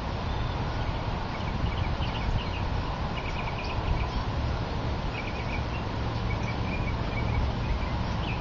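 Small birds chirping in quick short series, over a steady low outdoor background rumble.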